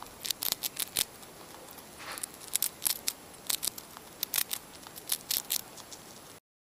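Crackling sound effect for an animated logo intro: irregular sharp clicks and snaps over a faint hiss, cutting off abruptly near the end.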